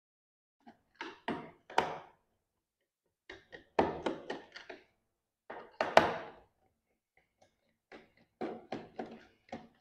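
Clicks and knocks of a screwdriver against the screws and plastic case of a 4G Wi-Fi router as its underside screws are taken out, in four short clusters.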